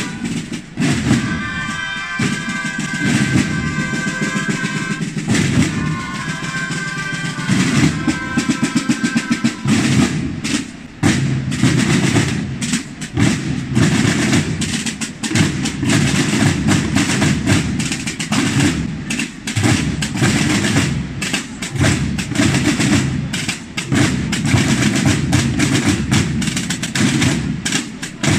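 A procession band of tarotas and drums: for about the first ten seconds the tarotas play a held melody over the drumming, then they stop and the drums carry on alone with snare rolls and bass-drum beats.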